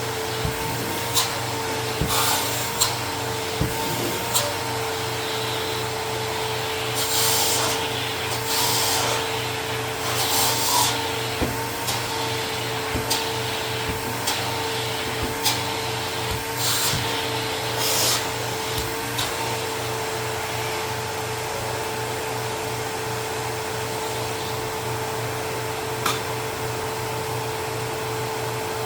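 Dust Care Evolution Prestige 6502Z upright vacuum cleaner running steadily with a constant motor whine. Over roughly the first twenty seconds there are scattered sharp clicks and several brief hissy swishes.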